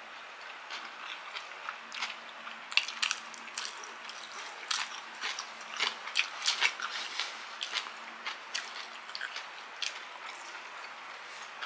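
Close-miked eating sounds: a run of irregular small clicks and crunches of chewing and chopsticks, busiest in the middle.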